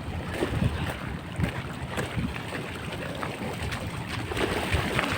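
Wind buffeting the microphone: a rough, uneven low rumble with irregular gusts.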